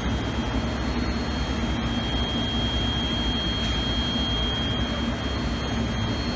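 BTU Pyramax 125A reflow oven running, its convection blowers giving a steady whir with a thin, constant high whine over a low hum.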